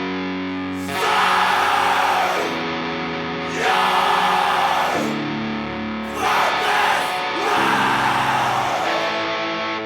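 Heavy metal music: a distorted electric guitar riff, with louder, noisier full-band passages crashing in about a second in and several more times.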